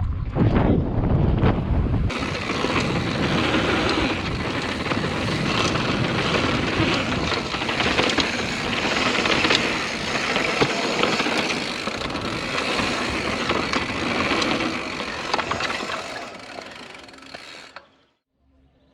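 Mountain bike riding down a trail, heard through a helmet or chest GoPro. Heavy wind rumble on the microphone for about two seconds, then an abrupt change to tyre and dirt noise with the rattle and clicks of the bike and little wind. The sound fades and cuts out just before the end.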